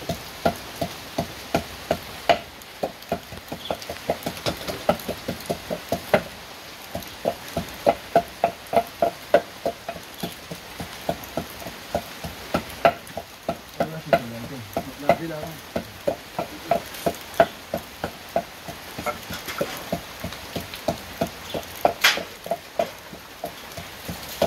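A utensil stirring food in an aluminium pot on a gas stove, knocking against the pot's side about three times a second with a short metallic ring, over a steady sizzle. One sharper knock comes near the end.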